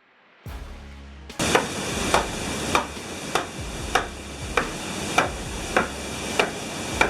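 Water-powered sawmill running: a low steady hum, then from about a second and a half in a saw cutting timber with a continuous rasp and a sharp regular knock about every 0.6 s, the rhythm of the saw's strokes.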